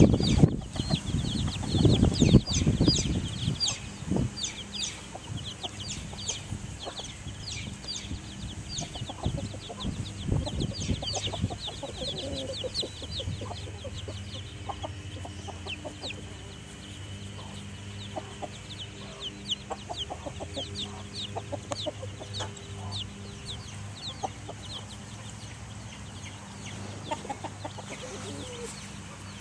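Brood of Transylvania Naked Neck chicks peeping over and over in short high cheeps, with a mother hen clucking low among them. A loud low rumble fills the first three seconds, and a steady low hum runs underneath.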